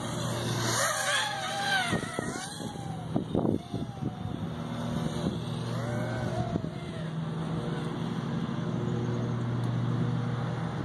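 Small quadcopter's electric motors and propellers buzzing, the whine rising and falling in pitch as the throttle changes in flight. Wind buffets the microphone with a few loud thumps about three to four seconds in.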